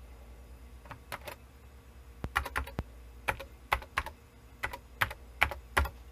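Keystrokes on a Tandy Model 102 portable computer's keyboard: separate clicks at an uneven pace, with a quick run of strokes a little past two seconds in.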